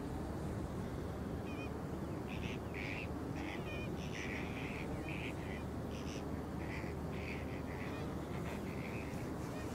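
A flock of flamingos calling: many short honking calls in quick succession, over a steady low background rumble.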